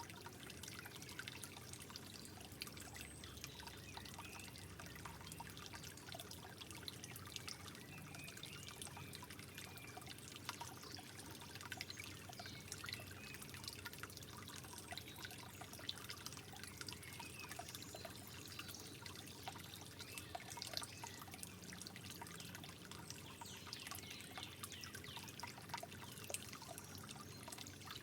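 Soft trickling water running steadily, with many small drips and splashes.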